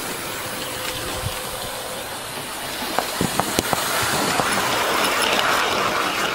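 Hornby OO gauge model train, a Wainwright H class tank engine and two coaches, running past on the track: a steady whirr of motor and wheels, with sharp clicks of the wheels over the rail joints from about three seconds in, growing a little louder as the train passes close.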